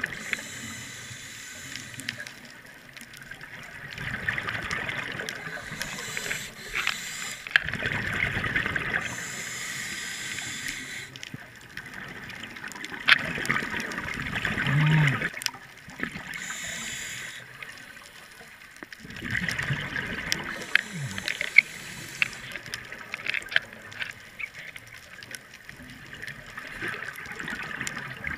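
Scuba regulator breathing underwater: hissing inhalations and bubbling exhaled air, one breath cycle every few seconds.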